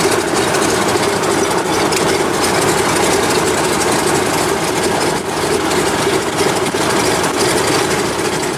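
Bushmaster 2000 Trimotor's Pratt & Whitney R-985 radial engines running steadily at low power, heard from inside the cockpit.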